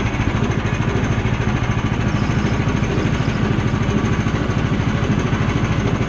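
Gasoline engine of a Woodland Mills HM130 portable sawmill running at a steady speed, a steady even engine sound with a fast regular pulse, while the saw head is set for the next cut.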